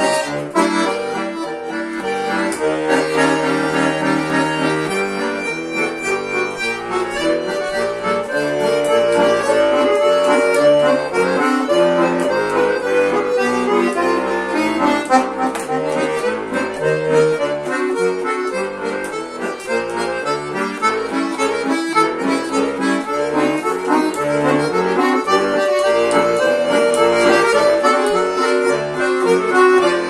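Bayan (chromatic button accordion) played solo: an improvised piece with a continuous melody over bass and chords, with a few long held notes along the way.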